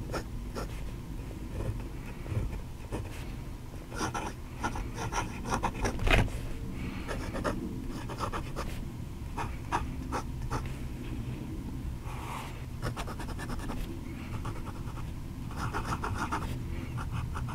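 Vintage Howard fountain pen's soft 14k gold nib writing on paper: short runs of quick pen strokes with pauses between, the strongest about six seconds in.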